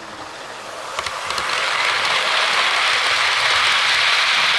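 Model railway train rolling along the track. A sharp click comes about a second in, where it crosses a baseboard joint, and then the rolling noise grows louder into a steady hiss as it runs onto the ballasted section.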